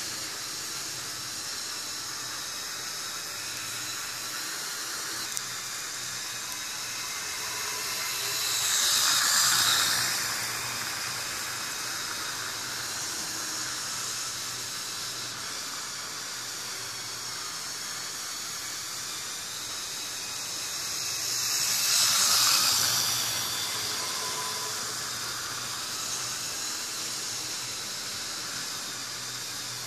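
H0-scale model train of Piko locomotives hauling open coal wagons running round the track. It makes a steady hiss of wheels on rails and motor hum, which swells twice, about 13 seconds apart, as the train passes close by.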